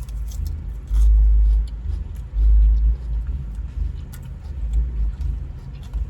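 Low rumble of a car cabin. Heavier surges of rumble come about a second in and again about two and a half seconds in, with faint scattered clicks.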